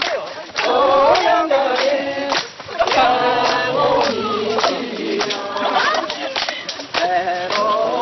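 A group of people singing together without instruments, clapping along in time.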